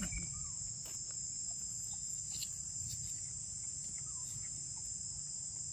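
Steady, high-pitched drone of insects calling, with a low rumble underneath.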